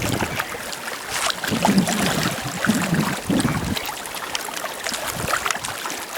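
Lake water lapping and splashing gently, with scattered light clicks and a few low gusts of wind on the microphone.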